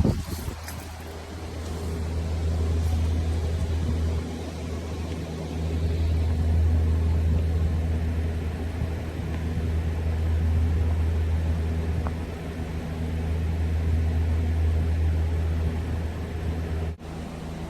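Nissan Y31 Cedric's engine idling through a straight-pipe middle section of the exhaust: a steady, deep rumble whose loudness swells and eases a few times.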